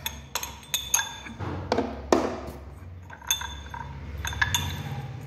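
Small glass cups and miniature bottles clinking together as they are handled in a model truck's bar compartment: about a dozen irregular light clinks, each with a brief high ring.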